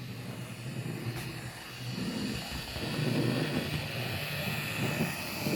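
Fleischmann HO-scale BR80 model steam locomotive running in reverse on the track: a steady whirr from its small electric motor and gearing and wheels rolling on the rails. It grows louder over the first few seconds.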